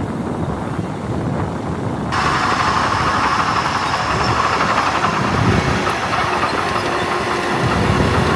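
Heavy diesel engine of earthmoving machinery running steadily. About two seconds in, the sound turns abruptly louder and brighter, with a strong mid-pitched rasp over the low engine rumble.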